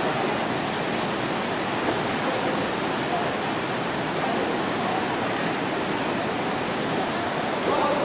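Waterfall: a steady, even rush of falling water that does not let up, with faint voices partly under it.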